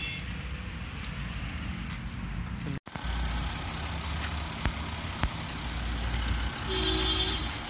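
Diesel engine idling with a steady low rumble, broken by two sharp clicks in the middle, with a short vehicle-horn toot near the end.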